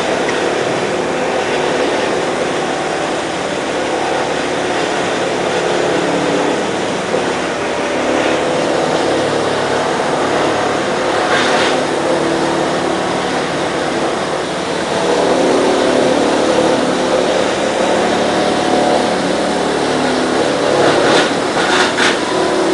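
Electric wood crusher (sawdust-making machine) running steadily as wood logs are fed in and ground into sawdust. A sharper noise breaks through about halfway through and twice more near the end.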